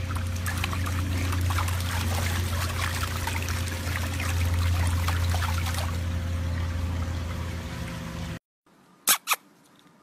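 Pool water splashing and trickling as a puppy paddles its legs while held in the water, over a steady low hum. The sound cuts off about eight seconds in, followed by two short clicks.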